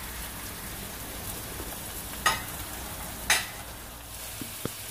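Diced raw pork sizzling gently in hot oil with garlic and onion in a nonstick wok, a steady frying hiss. Two sharp clicks about a second apart sound midway.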